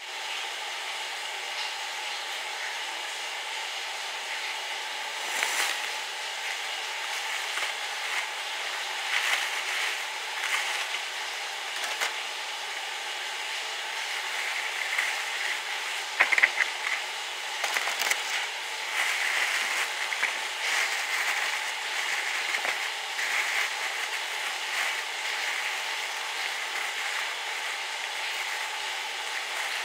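Thin plastic shopping bag crinkling and rustling in irregular bursts as it is handled and opened, over a steady background hiss.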